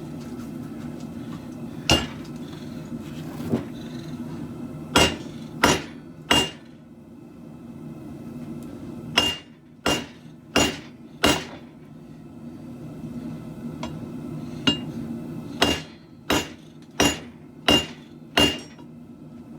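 Hammer blows on a khopesh blade over an anvil: about fifteen sharp, ringing strikes in uneven groups with pauses between. Under them a propane forge burner runs steadily.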